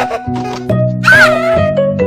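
Bouncy children's cartoon music: stepped keyboard-like notes over a bass line with a regular ticking beat. About a second in, a short high-pitched sound slides up and down in pitch over the music.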